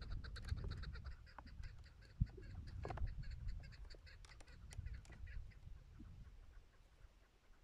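Chukar partridges calling: a rapid run of short chuck-chuck notes that fades away over the first six seconds. A low wind rumble sits under the calls, and there is a single sharp click about two seconds in.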